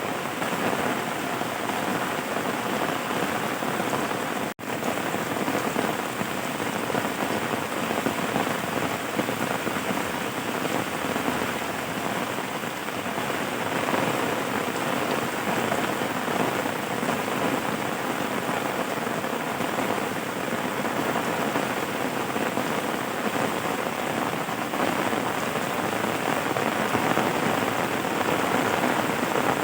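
Steady rain falling on a surface, a dense even hiss of drops. The sound cuts out for a split second about four and a half seconds in.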